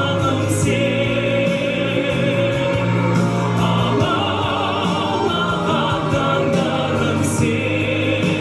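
Male singer performing a ballad live over band accompaniment with sustained notes, his voice turning harder-edged and raspier.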